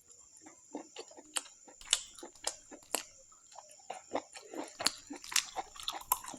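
A person chewing food close to the microphone: irregular mouth clicks and smacks, several a second.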